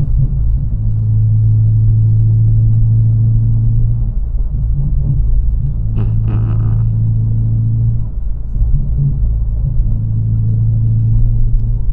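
Honda Civic Si's four-cylinder engine and road rumble heard from inside the cabin while driving: a steady low drone that changes pitch briefly about four and eight seconds in.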